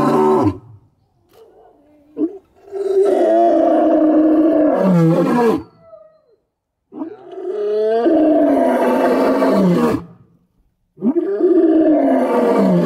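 White lion roaring: three long calls a second or so apart, each a few seconds long and dropping in pitch as it ends.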